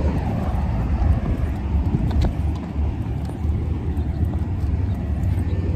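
Wind buffeting a phone's microphone: a loud, low, uneven rumble, with a few faint clicks.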